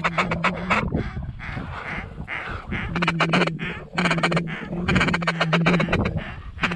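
Mallard duck calls blown in repeated bursts of fast chattering feeder calls, each burst lasting under a second with short gaps between, calling to ducks circling overhead to bring them in.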